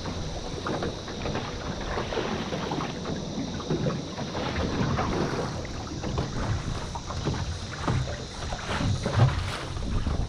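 Water slapping irregularly against the hull of a small aluminium boat, with wind buffeting the microphone.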